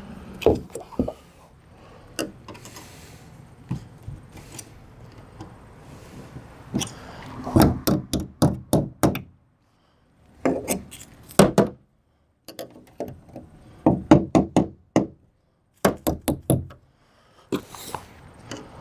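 Metal clip latches on a plywood shipping crate being knocked and pried loose with a hand tool: several bursts of sharp, quick knocks and clacks, with pauses between them.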